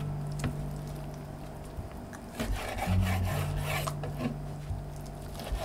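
Raw chicken thigh being rubbed, spread and slid by hand across a wooden cutting board: soft, scraping rubs with a few light taps, busiest in the middle. Under it runs a low background bass that steps between a few notes in a repeating pattern.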